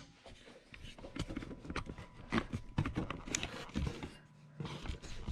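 Scattered light knocks, clicks and clatter of objects being handled and moved about, as someone looks for a funnel.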